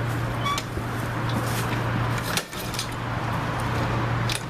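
Pull-start attempts on a Honda HRR216 lawn mower: the recoil starter is yanked and the engine turns over without firing, a sign of a no-start fault. A steady low hum runs underneath, with clicks and rattles, and breaks off briefly twice.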